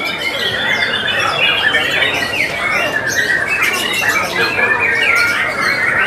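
Many white-rumped shamas (murai batu) singing at once in contest, a loud, dense tangle of overlapping whistles and quick rising and falling notes.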